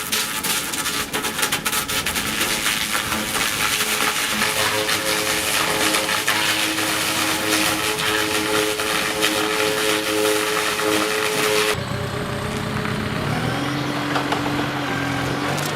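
Sawmill log-processing machinery running: a dense rattle with many clicks, and a steady whine that comes in after about four seconds. About 12 seconds in the sound changes suddenly to an engine running, its pitch rising briefly near the end.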